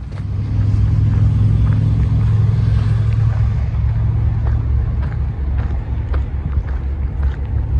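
A motor vehicle passing: an engine hum with tyre noise that swells right at the start and fades after about four seconds, over the walker's footsteps.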